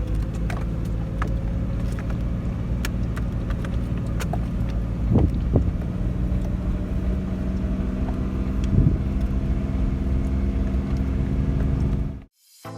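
Motor vehicle engine running steadily, with scattered light clicks. It cuts off abruptly near the end.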